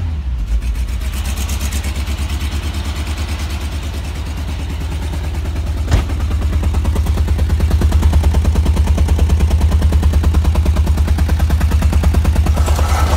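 Car engine idling steadily through a newly fitted exhaust, with an even, rhythmic exhaust pulse. A single sharp knock comes about six seconds in, and after it the exhaust is louder, close to the tailpipe.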